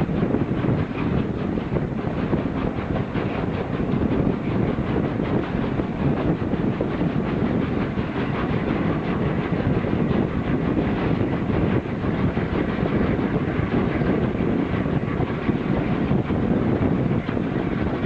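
Train hauled by steam locomotive 60163 Tornado, a Peppercorn A1 Pacific, running steadily, with wheels clicking over the rail joints.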